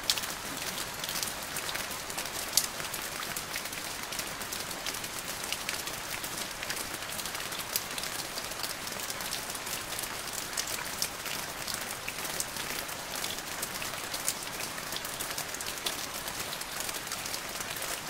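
Steady rain: an even hiss dotted with many small drop ticks.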